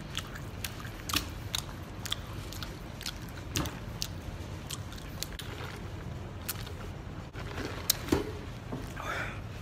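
A person chewing close to the microphone, with irregular mouth clicks and smacks over a steady low hum.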